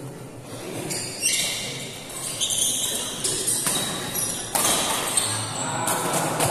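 Badminton doubles rally: the shuttlecock is struck by rackets about once a second, with sneakers squeaking on the court floor between the hits, over a murmur of voices.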